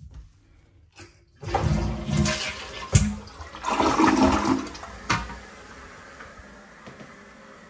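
Toilet flushing: a loud rush of water for about four seconds, broken by two sharp knocks, then dropping to the quieter steady hiss of the tank refilling.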